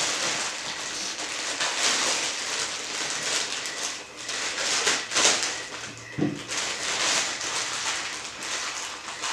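Clear plastic packaging bag crinkling and rustling as hands work it open and pull it off a figure, in uneven surges of crackle.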